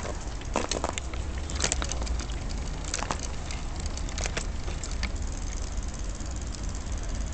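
Wheelchair rolling over a paved street, with a steady low rumble and a run of sharp clicks and rattles in the first five seconds as the chair and its camera mount jolt.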